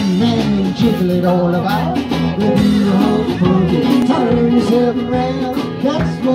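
Live band music: an upbeat song with guitar and singing, played loud and without a break.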